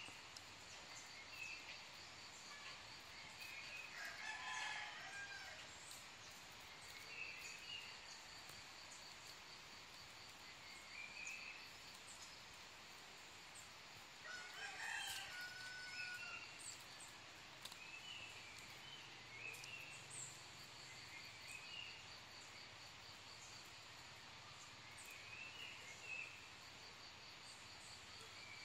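Faint outdoor ambience of birds calling: short chirps repeating every couple of seconds, and two longer calls, one a few seconds in and one about midway. Under them runs a steady, fast, high pulsing trill.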